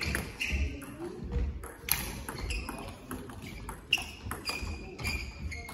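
Table-tennis rally: the ball's sharp clicks off the bats and the table, about two a second.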